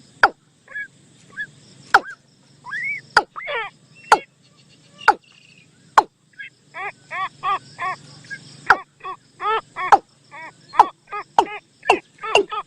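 Bird decoy-call recording of the นกตูม: short arched, pitched call notes with sharp clicks between them, scattered at first, then from about halfway through a fast, regular series of about three calls a second.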